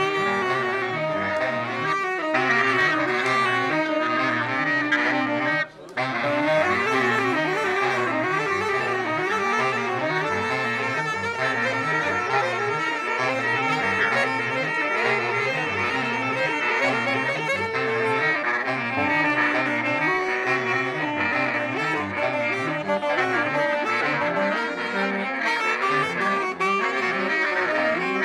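Music with a steady, pulsing bass beat and held melody notes over it, cutting out for a split second about six seconds in.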